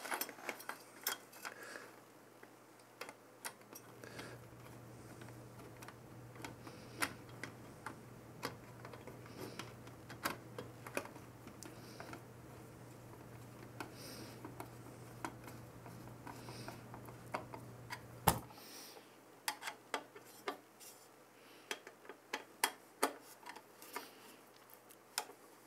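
Faint, irregular small metallic clicks and ticks as the screws of a CPU cooler's mounting crossbar are turned down, with one sharper click about two-thirds of the way through.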